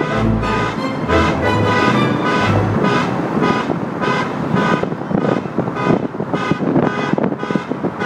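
A car horn tooting over and over in short blasts, about three a second, over the noise of a moving car.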